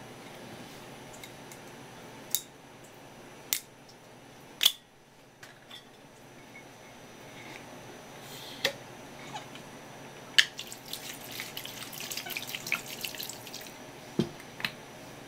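Sake being poured over cut raw swimming crab pieces in a stainless steel bowl, with liquid splashing and shell pieces clattering, loudest in a stretch about three seconds long in the second half. Sharp knocks and clinks of the glass sake bottle come at intervals, and a duller knock near the end as the bottle is set down on the wooden board.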